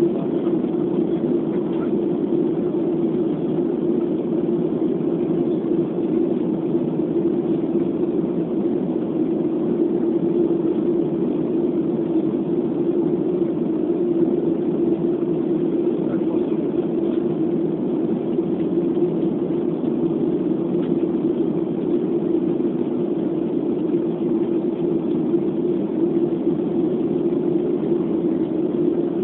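Steady drone of jet engine and airflow noise inside a Boeing 737 airliner's cabin in cruise flight, even and unbroken, strongest in a low hum.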